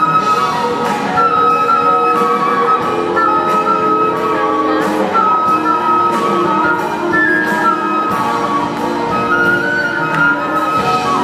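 Live pop band playing an instrumental passage, a high melodic lead line over drums.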